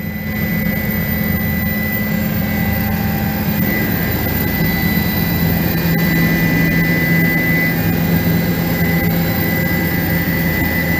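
Helicopter turbine engine and rotor heard from inside the cabin, running steadily: a constant high whine over a loud low drone. The drone deepens slightly about halfway through.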